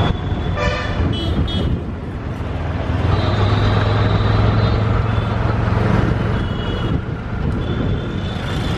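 City street traffic heard from a moving vehicle: a steady low engine hum with horns honking, a few short honks about a second in and more horn tones later on.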